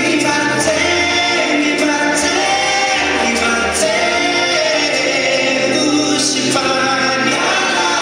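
Male singer performing live into a microphone over backing music with a held bass line and choir-like backing voices, amplified through a PA speaker.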